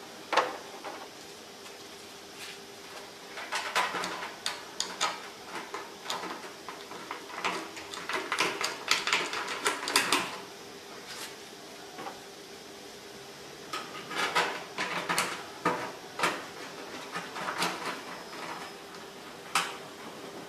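Clicks, taps and rattles of small metal parts as a lamp-holder bracket is fitted onto a metal reflector sheet and its screws are put in by hand, coming in bursts with short pauses between. A faint steady hum runs underneath.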